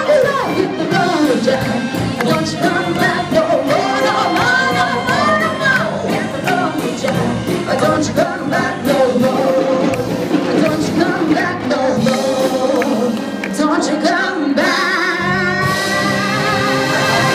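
A woman singing a song into a hand microphone through a PA, with a brass military band accompanying her. Near the end she holds one long note with a wavering vibrato.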